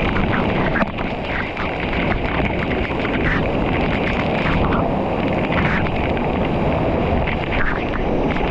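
Steady roar of rushing water, with some wind buffeting the microphone.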